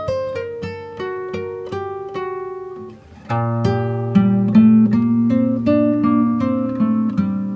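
Background music on acoustic guitar: plucked notes in a melodic run, then after a short pause about three seconds in, fuller held chords over a low bass.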